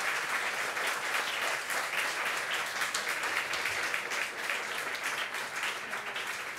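Audience applauding: a dense, steady patter of many hands clapping, thinning slightly near the end.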